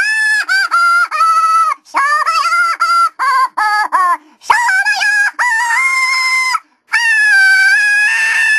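Auto-tuned speech remixed into a song, the voice held on flat, stepped notes in short sung phrases, played back from a computer and picked up by a camera microphone.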